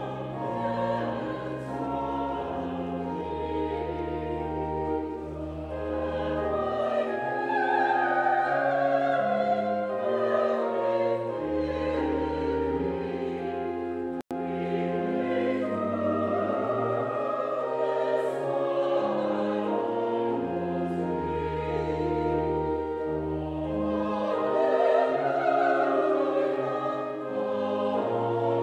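Sacred choral music: voices singing over an instrumental accompaniment with long, sustained bass notes. The sound cuts out for an instant about halfway through.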